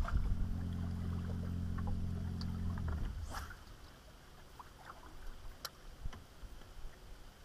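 A boat motor humming steadily, cutting out about three seconds in; after it only a few faint clicks are left.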